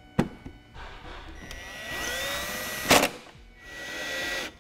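Cordless power driver whirring as it drives the taillight screws back in, its motor speeding up, with a sharp knock about three seconds in and a second short run of whirring near the end.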